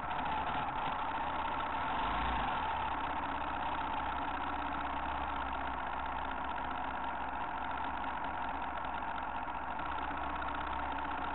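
Off-road motorcycle engine idling steadily, with no revving.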